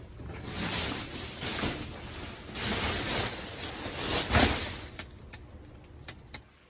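Plastic trash bags rustling and crinkling as they are pushed aside while rummaging through bagged trash, in several surges with the loudest about four and a half seconds in, then dying down.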